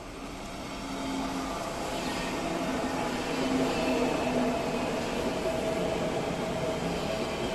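SBB intercity electric train (an ICN tilting train) running past along the platform. The rumble of its wheels on the rails grows louder over the first few seconds as it draws level, then holds steady, with a couple of steady tones over the rumble.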